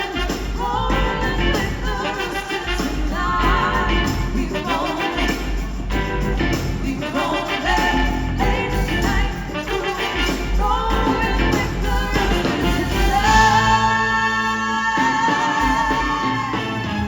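Live band playing an instrumental stretch between sung verses, with some voice in the mix and a long held note a little before the end.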